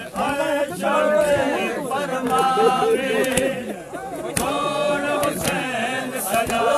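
Men's voices chanting a noha, an unaccompanied Shia mourning lament, with long held sung lines.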